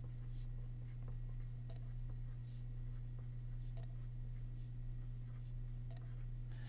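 A pen writing on paper: a run of short, faint scratching strokes as a line of words is written, over a steady low hum.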